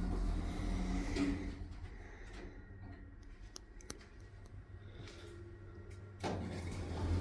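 Otis Gen2 elevator doors sliding open with a mechanical whirr, settling about a second and a half in. A quieter stretch with a few light clicks follows over a steady low hum. A louder noise comes in near the end.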